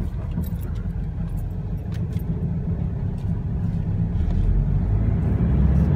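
Car engine and road rumble heard from inside the cabin while driving, with a few light clicks and rattles; the rumble grows louder in the second half as the car picks up.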